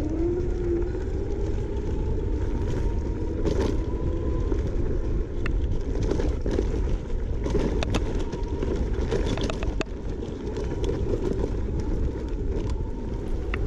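Langfeite L8S electric scooter's hub motors whining steadily while riding off-road. Wind rushes on the microphone throughout, and scattered clicks and knocks are heard.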